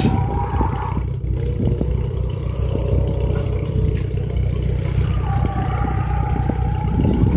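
Rally car engine running under load, a loud steady drone with a whine that drops in pitch about a second in and climbs back higher about five seconds in.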